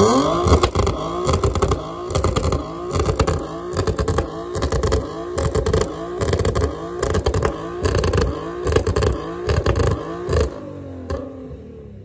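Infiniti G37 coupe's V6 being revved in quick repeated throttle blips from the exhaust, with sharp pops and crackles between blips. It settles back to idle about ten seconds in.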